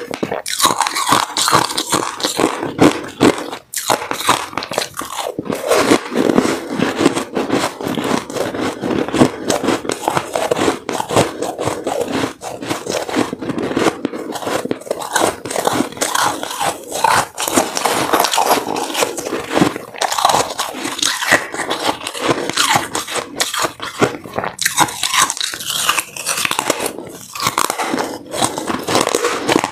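Ice being bitten and chewed: a dense, unbroken run of crunches and crackles as frosty ice chunks break between the teeth.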